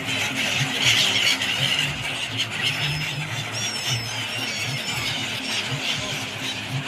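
A flock of migratory birds calling together: a dense chatter of many high, short, squealing cries, loudest about a second in. A steady low hum runs underneath.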